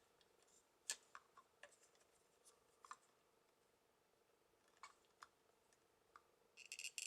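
Steering wheel of a Flysky FS-GT3C radio transmitter being turned, with a few faint plastic clicks, then a loud, choppy, high-pitched squeak starting near the end. The squeak comes when the wheel is turned right and its stop presses on the rocker arm, a dry joint that squeaks after use in wet weather.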